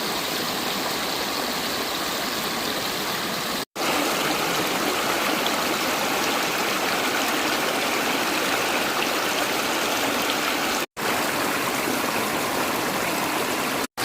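Steady rush of fast-flowing stream water, cutting out briefly three times.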